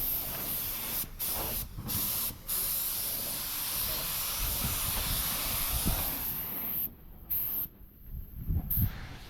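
Compressed air hissing from a spray nozzle in long blasts, with three brief breaks where the trigger is let off. It stops about seven seconds in, then comes back as two short blasts near the end.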